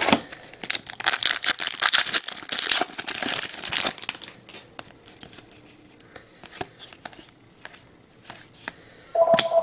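A foil hockey-card pack wrapper being torn open and crinkled, followed by softer sparse clicks of the cards being handled. Near the end a phone starts ringing with a loud, steady, pulsing electronic tone.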